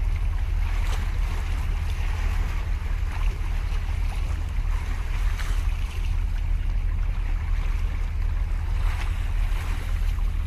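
Wind buffeting the microphone as a steady low rumble, over the hiss and wash of sea waves breaking on concrete breakwater blocks.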